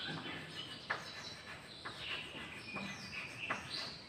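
Chalk writing on a blackboard: about four sharp taps with scraping in between as a word is written, along with some high chirping.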